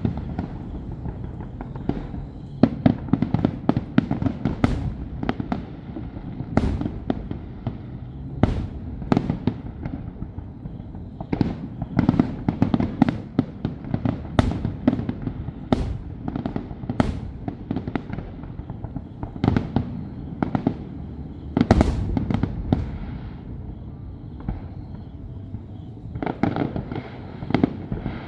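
Fireworks display: aerial shells bursting in quick, irregular succession, sometimes several bangs a second, over a continuous low rumble. The bangs thin out briefly about three-quarters of the way through, then pick up again.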